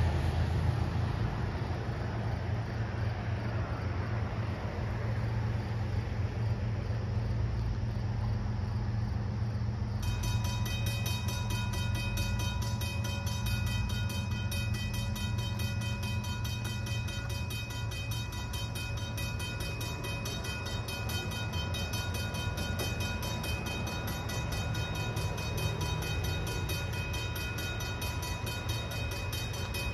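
A railroad crossing's mechanical bell starts ringing about ten seconds in, a rapid, steady clanging that signals an approaching train as the crossing activates. A steady low rumble runs underneath.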